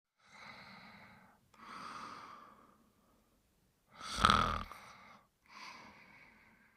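A sleeper snoring: slow, noisy breaths in and out, with a much louder, deeper snore about four seconds in.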